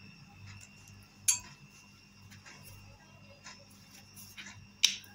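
Metal spoon clinking against a glass bowl: two sharp clinks, one about a second in and one near the end, with faint light ticks of the spoon in between.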